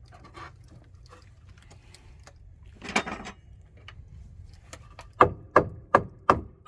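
A hammer knocking on wood five times in quick succession near the end, about three strikes a second, each with a short ring. A single scraping knock comes a couple of seconds earlier.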